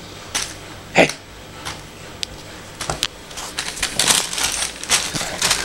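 Paper bag rustling and crinkling on a dog's head as it moves about on blankets, in scattered bursts that grow busier in the second half. About a second in, one short, loud vocal sound.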